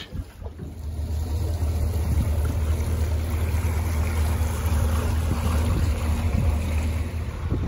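Outboard motor on a small fishing boat running steadily under way, with the wash of water in its wake.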